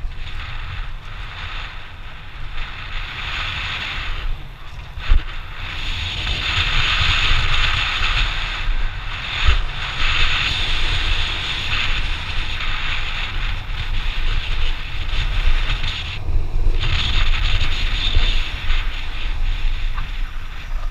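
Mountain bike riding down a dirt trail as heard on an action camera: wind buffeting the microphone over the hiss of tyres on dirt and the rattle of the bike, with a couple of sharp knocks over bumps.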